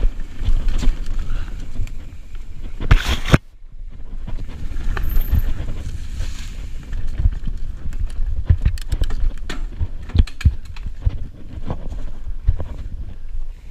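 Mountain bike riding fast down rough dirt singletrack: wind rumbling on the camera microphone, with repeated clatter and knocks as the bike hits roots and rocks. A loud knock about three seconds in, then the sound briefly cuts out.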